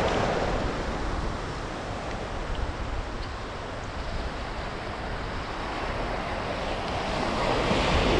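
Small ocean surf waves breaking and washing through the shallows, with wind rumbling on the microphone. The wash is loudest at the start, eases off in the middle, and swells again near the end as another wave breaks.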